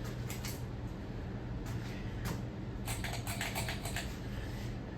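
A scattering of light clicks and taps, thickest about three seconds in, over a steady low hum.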